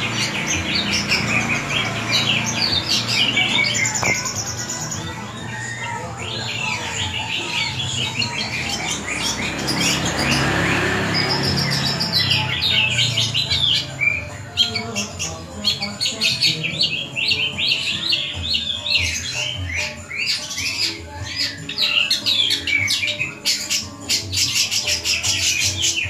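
Long-tailed shrike (cendet) singing a rapid, varied song of chirps, trills and squawks, typical of this bird's mimicking of other birds' calls.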